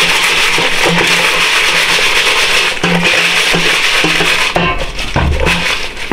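Background guitar music.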